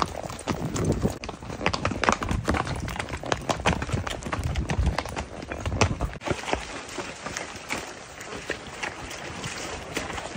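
Horses' hooves clip-clopping on a gravel and dirt trail, an irregular run of sharp hoofbeats heard from horseback.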